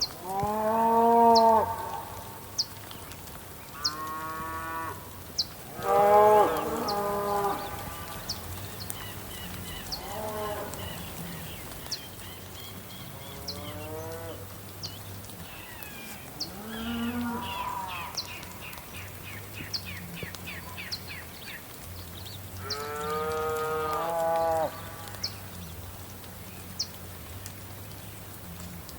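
Cattle mooing, about eight long drawn-out moos of varying pitch, some overlapping, the loudest near the start and about six seconds in. Rapid high bird twittering runs through the middle, and short high ticks come roughly once a second.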